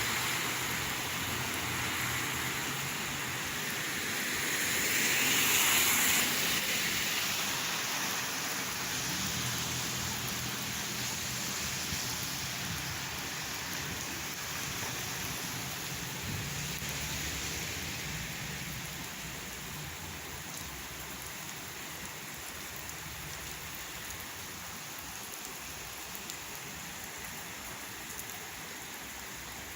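Steady rain falling and splashing, swelling louder for a moment about five seconds in, with a faint low rumble partway through, then easing off slightly.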